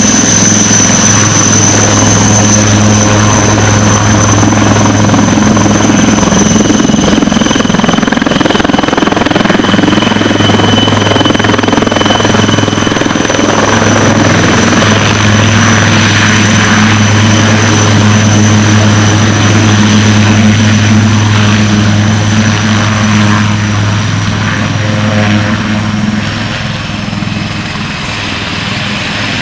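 HAL Dhruv twin-engine army helicopter setting down and running on the ground: a loud, steady rotor drone under a high turbine whine. Near the end the sound drops a little and the whine sags slightly.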